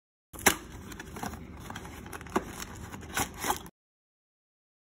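Cardboard blind-box packaging and its paper insert card being opened and handled: a low rustle with about five sharp clicks and taps, the first the loudest.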